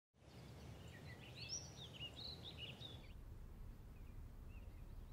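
Faint outdoor ambience: small birds chirping in quick short calls for a couple of seconds, then only now and then, over a low steady rumble.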